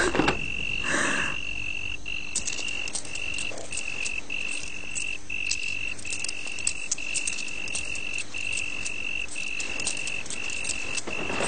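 Night-time insect chorus: a steady high cricket trill that breaks off briefly at regular intervals, with a rapid scatter of sharp clicks joining about two seconds in.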